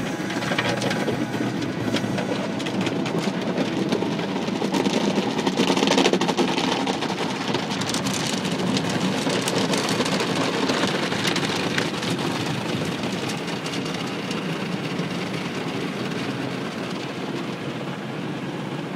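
Automatic car wash heard from inside the car's cabin: water jets spraying and streaming over the windshield and body, with the wash machinery running, a steady rushing noise. It is loudest about six seconds in and gradually eases off toward the end.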